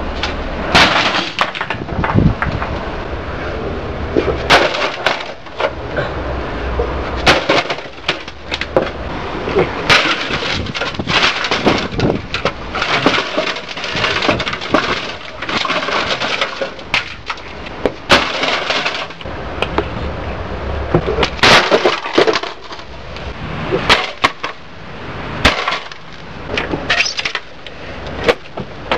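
An old Gateway 2000 desktop computer's steel case and parts being smashed up, with many irregular, sharp crashing impacts, metal clattering and the cracking and breaking of boards and panels.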